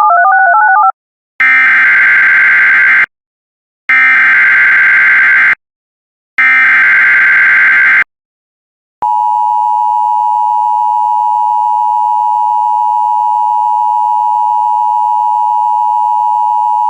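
Emergency Alert System broadcast tones: after a brief two-tone warble, three bursts of screeching SAME header data, each under two seconds with short gaps, then the steady two-tone EAS attention signal for about eight seconds, cutting off suddenly. The sequence signals an incoming weather warning.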